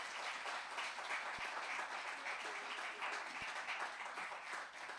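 Audience applauding, a steady clatter of many hands clapping that begins to thin out near the end.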